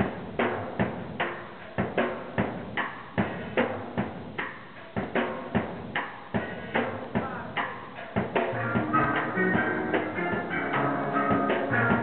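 Steel pan band playing: evenly spaced struck strokes at first, then about eight seconds in the full band comes in with a dense run of ringing pitched notes.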